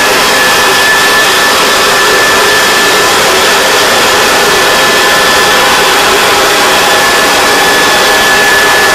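Leaf blower running steadily: a loud rush of air with a constant high whine.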